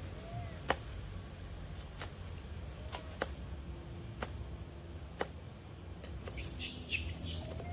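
Kitchen knives cutting yellow watermelon on a wooden cutting board: sharp knocks of the blade on the board about once a second, with a brief crisp rasp of slicing through the fruit near the end.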